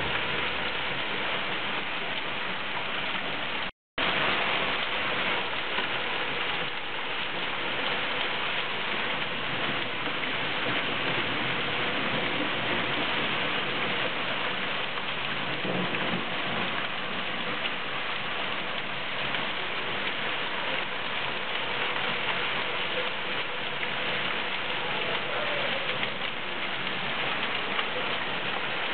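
Small hail mixed with rain falling steadily on a garden lawn and paving, a dense even patter, with one momentary break in the sound about four seconds in.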